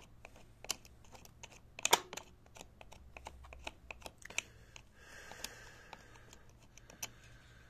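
Scattered light clicks and ticks from handling the dismantled electric chainsaw's plastic housing and oil pump parts, with one sharper click about two seconds in.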